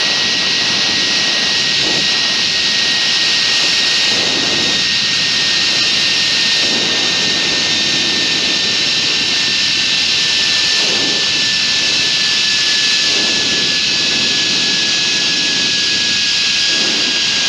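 Steady loud rush of wind on the microphone while speeding down a zip line, with a thin whine from the trolley running along the steel cable that slowly falls in pitch.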